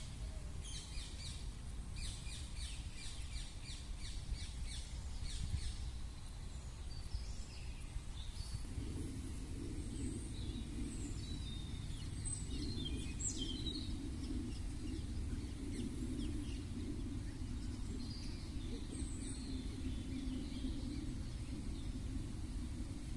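Wild birds calling over a steady low rumble: a rapid run of repeated rattling notes in the first few seconds, then scattered high chirps. A low droning hum comes in about a third of the way through and carries on.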